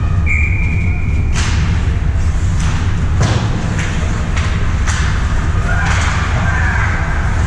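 Ice hockey play around the net: sticks and puck knocking and clacking several times, over a steady low rumble in the rink. A short steady high tone sounds in the first second, and a wavering tone, like distant shouting, near the end.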